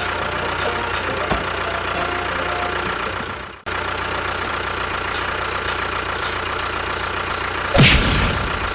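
Engine of a mini tractor running steadily at idle, cutting out for an instant about three and a half seconds in. Near the end a short, louder sound with a falling pitch rises over it.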